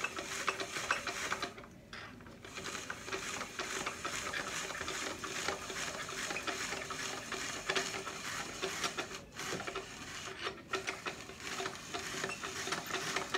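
Hand spiralizer cutting a yellow squash into noodles: a dense run of crisp scraping and crunching as the blade shaves the squash, pausing briefly about two seconds in and again twice near the end.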